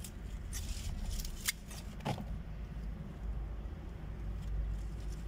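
Plant stems being cut, with about five crisp snips in the first two seconds over a steady low rumble.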